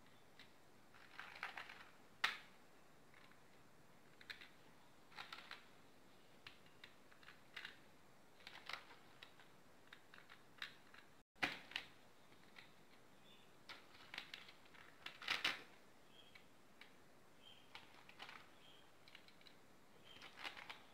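Faint, irregular clicks and light rattles of small plastic fuse beads being picked from a tray and pressed onto the pegs of a plastic pegboard.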